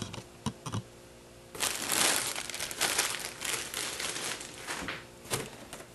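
Clear plastic packaging crinkling as it is handled and pulled out of a cardboard shipping box, with a few light knocks of boxed items. The crinkling starts about a second and a half in and dies down after about five seconds.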